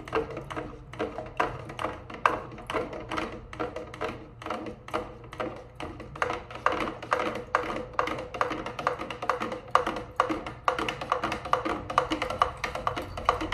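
Background music with a quick, steady percussive beat in a wood-block-like tone over a held melody.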